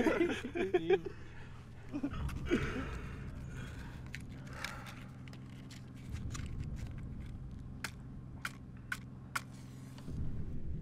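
Men chuckling, then a low steady hum. Near the end come four sharp clicks about half a second apart: a cigarette lighter being struck repeatedly to light a cigarette.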